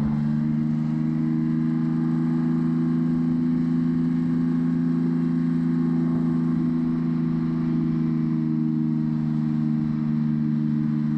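LAV-25 light armored vehicle's Detroit Diesel V6 diesel engine running steadily while the vehicle swims under power, a constant low drone.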